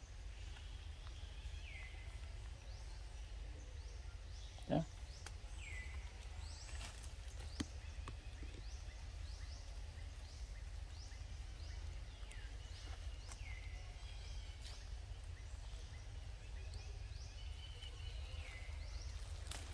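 Forest ambience: short high falling chirps repeat every second or two over a steady low rumble. One brief, louder squeak-like sound comes about five seconds in.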